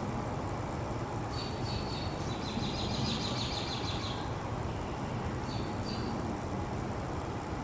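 High chirping trills of a bird, one run of about three seconds starting a second and a half in and a shorter pair of chirps near the end, over a steady low background rumble.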